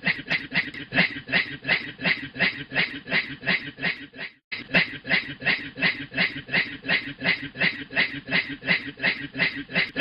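A man's rhythmic, snicker-like breathy huffs, about four a second, imitating a steam train's chuffing; they stop for a moment a little before halfway, then carry on at the same pace.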